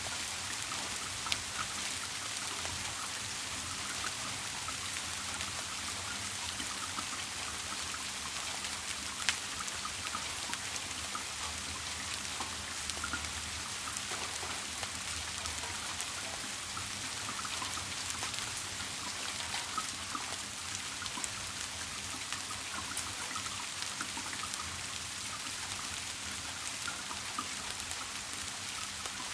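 Steady rain falling, with scattered sharper drop clicks, the loudest about nine seconds in.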